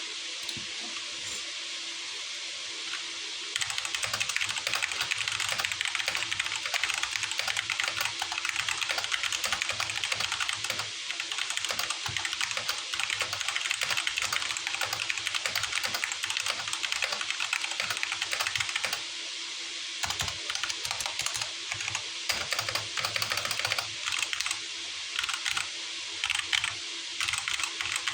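Typing on a Rampage KB-R135 Parvus mechanical keyboard with Huano brown tactile switches: fast, continuous keystrokes that start about three and a half seconds in, pause briefly around two-thirds of the way through, then resume in shorter spurts. A faint steady hum and hiss sit underneath.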